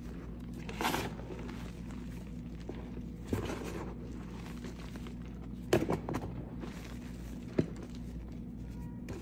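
Hands crushing lumps of reformed chalk into loose chalk powder: soft crunches in separate bursts, the sharpest about six seconds in and a brief sharp crack shortly after.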